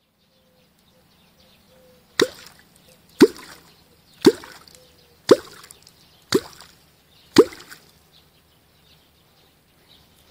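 Catfish clonk (kwok) struck into the water six times, about once a second: each stroke a sharp smack followed by a deep hollow plop that falls in pitch. This is the clonking call used to draw wels catfish up to the bait.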